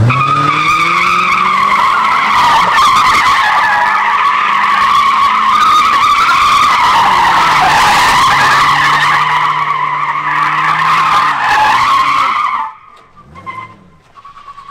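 Car tyres squealing continuously as the car drifts in circles on concrete, with the engine revving underneath; the squeal stops abruptly about twelve seconds in.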